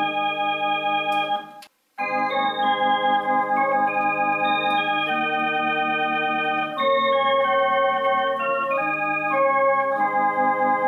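Elka X50 electronic organ playing held chords of a slow hymn in A-flat major, the lower notes wavering with a vibrato. The sound cuts out briefly a little under two seconds in, then the chords go on.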